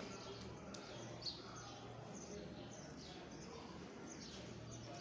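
Faint steady background ambience with scattered short, high chirps and a soft click about a second in.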